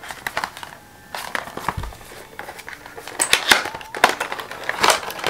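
Packaging being handled and opened: irregular crinkling and rustling, busier and louder in the second half.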